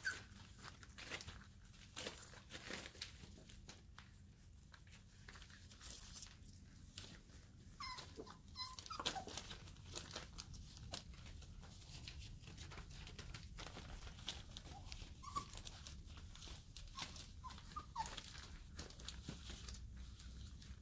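4.5-week-old Airedale Terrier puppies playing: faint scuffling and pawing on a fleece blanket, with a few brief high-pitched puppy squeaks about eight seconds in and again a little past the middle.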